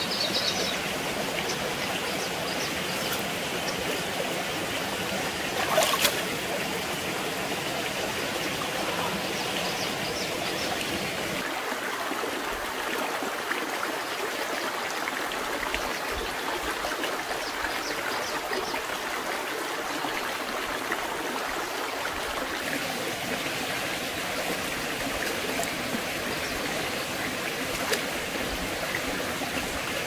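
Stream water flowing steadily, with one short sharp knock about six seconds in.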